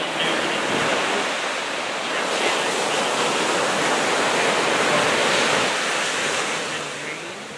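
Ocean surf washing onto the beach: a steady rushing that eases off near the end.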